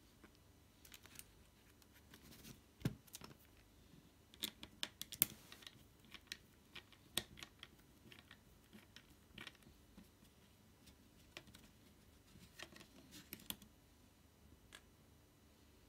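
Faint, irregular clicks and taps of a small screwdriver and fingertips on a netbook's plastic case and metal drive shield while a screw is worked loose.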